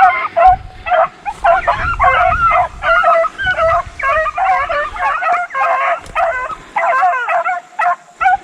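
A pack of deer hounds baying and yelping in quick, overlapping calls, about two or three a second, as they run a deer.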